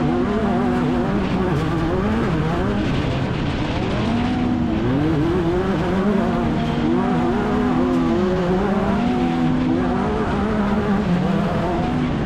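Off-road race vehicle's engine running hard, heard onboard: the revs climb, hold, fall away and climb again over and over as the throttle is worked through the course.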